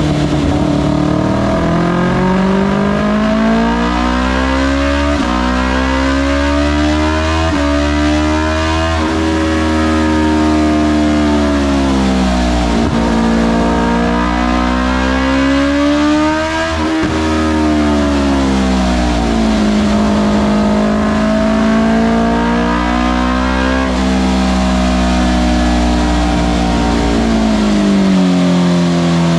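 BMW S1000RR superbike's inline-four engine running on a chassis dyno, its revs climbing and falling several times as the throttle is opened and eased, with a steady low drone underneath.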